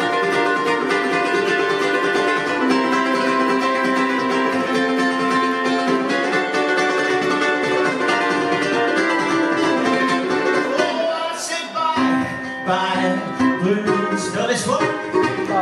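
Ukulele played solo, a busy stream of strummed and picked notes; a man's voice comes in singing along about two-thirds of the way through.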